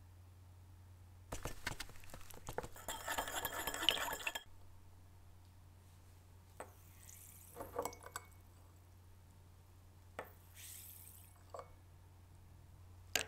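Metal tweezers clinking against small glass jars and small metal parts being handled in liquid. About a second in there are three seconds of dense clinking and splashing that stop suddenly, then a few separate clinks and small splashes.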